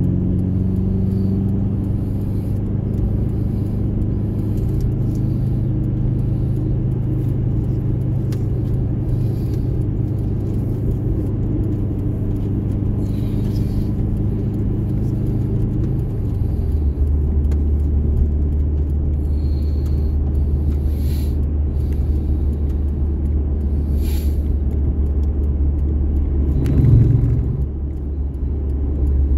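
2003 Subaru Impreza WRX STI's turbocharged flat-four engine running at a steady speed, then settling to a lower steady note about halfway through. Near the end its pitch briefly rises and falls.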